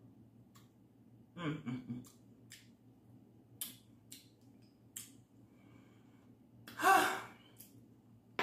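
A woman eating a creamy dessert. About a second and a half in she makes a short hummed "mm" of enjoyment, then a few light clicks follow as a metal spoon works in a glass cup. Near the end comes a loud voiced sigh.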